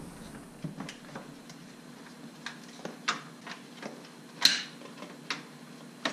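Hard plastic battery tray clicking and knocking against surrounding parts as it is worked loose and slid out, a string of light clicks with one sharper knock about four and a half seconds in.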